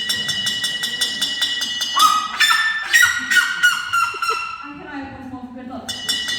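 Red-legged seriema giving its really loud alarm call: a rapid run of piercing notes, about seven a second, louder and higher in the middle, easing briefly and starting up again near the end.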